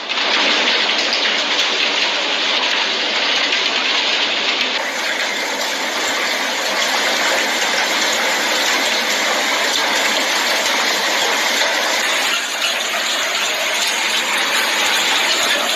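Heavy hail pelting down in a dense, steady downpour of noise. The sound changes abruptly about five seconds in and again near twelve seconds, as one clip of the storm gives way to another.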